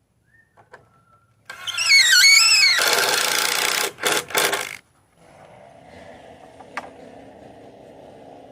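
Chainsaw revving hard, its pitch swinging up and down, then briefly cutting out before settling into a steady idle about five seconds in.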